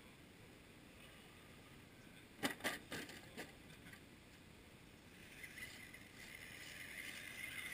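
Small electric motor on a radio-controlled scale crawler, whining steadily as the truck is hauled up a steep dirt bank by its winch, the whine starting about five seconds in. Earlier come a few sharp clicks or knocks, the loudest sounds here.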